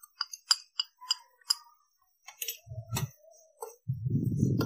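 Steel spoon clicking and scraping against a steel pan as spice powder is stirred into fried onions. A run of short clicks gives way to a louder, deeper stretch of scraping about four seconds in.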